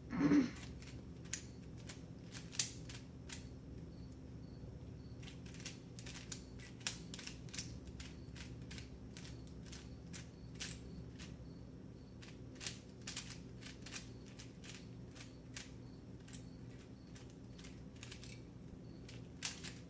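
Plastic 3×3 speed cube being turned layer by layer as it is solved: irregular clicks and clacks of the pieces snapping into place, with a brief louder sound right at the start.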